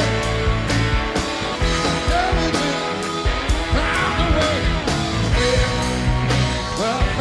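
Rock band playing live: drums with a steady beat of cymbal hits, bass guitar, electric guitar and Hammond B3 organ.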